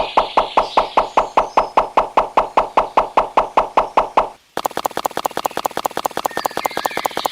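A small machine knocking rhythmically, about five even knocks a second. About halfway through, a cut brings in a faster rhythm of about eight knocks a second.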